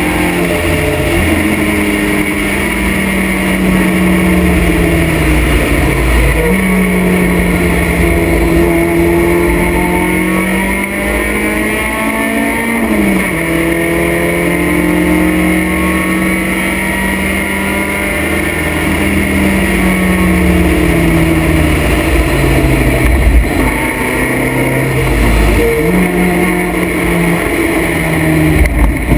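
Vintage race car engine heard from the open cockpit at racing speed, its revs climbing and then dropping again several times as the driver changes gear. A heavy low rumble of wind buffets the microphone underneath.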